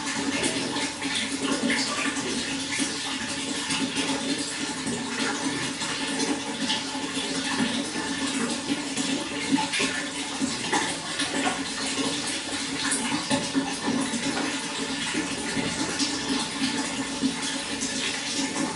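Running water, a steady splashing and gurgling flow with no change in level.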